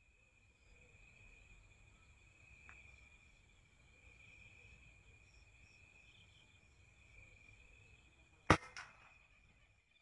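A single air rifle shot about eight and a half seconds in, followed at once by a fainter crack, over the steady high-pitched chirring of insects.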